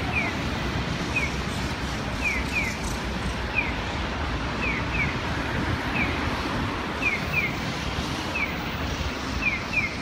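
Japanese pedestrian crossing signal's bird-call chirps: a single short falling 'piyo' alternating with a double 'piyo-piyo', one call about every second, over steady street noise.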